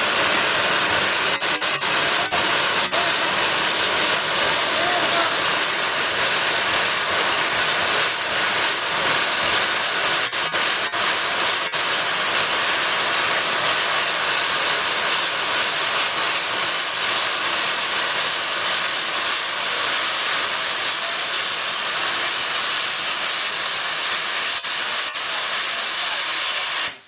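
Steam escaping from an old steam engine's boiler with a steady, loud hiss, a few faint clicks heard over it.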